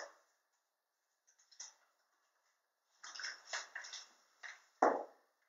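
Near silence for about three seconds, then faint scattered clicks and taps, with one sharper knock just before the end.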